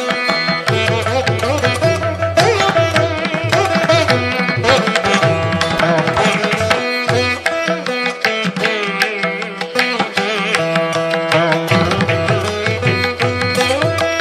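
Instrumental background music in an Indian classical style: plucked strings over a steady held drone, with hand drums.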